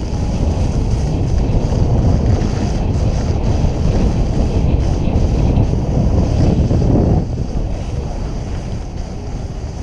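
Wind buffeting a GoPro Hero 3+ camera's microphone as it moves downhill on a skier, with the hiss of skis sliding over granular snow mixed in. The rush drops off about seven seconds in as the skier slows.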